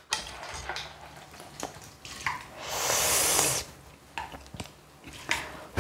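Eating sounds over a bowl of clam kalguksu: a few soft clicks and, about halfway through, a louder wet, hissing noise lasting about a second.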